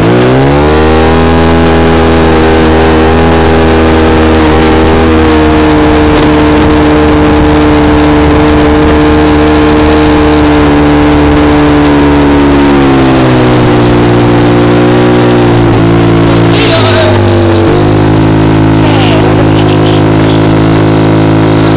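Off-road dune buggy engine running hard and steadily with a noise of rushing air over it. Its pitch shifts as the throttle changes right at the start, again about 13 seconds in, and near 18 seconds.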